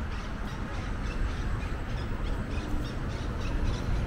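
Birds calling over and over in short calls, over a steady low rumble.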